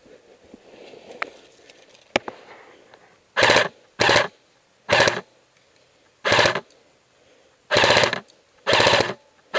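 Airsoft electric rifle firing short full-auto bursts: six bursts of about half a second each, the first about three seconds in, coming every second or so. A couple of sharp clicks come before them.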